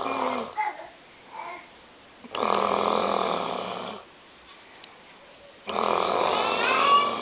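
A grandmother snoring in her sleep: long snores about every three seconds, each lasting a second and a half or so, with quiet gaps between.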